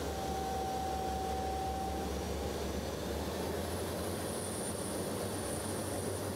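Aircraft engines droning steadily in flight, a constant low hum under an even rush of noise. A steady mid-pitched tone runs through the first two and a half seconds and then stops, and a faint high whine comes in near the end.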